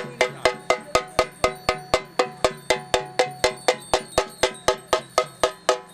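Struck metal percussion at a steady fast beat, about four strokes a second, each stroke ringing briefly at a few bright metallic pitches, as in temple festival music.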